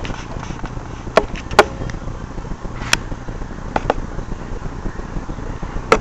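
A handful of sharp clicks and knocks from handling a ceiling fan blade and an angle-measuring tool, the loudest two about a second and a half in. Under them runs a steady low rumble of outdoor background noise.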